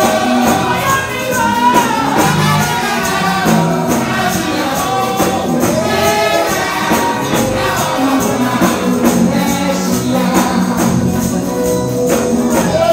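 Live gospel music: a man sings into a microphone, backed by a choir and a steady percussion beat.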